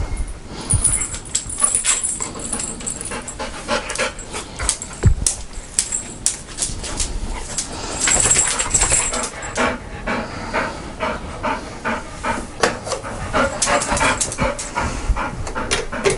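Golden retriever panting in a quick, even rhythm.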